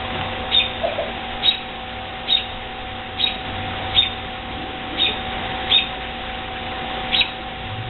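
A bird giving a series of short, high chirps, roughly one a second, over a steady electrical hum.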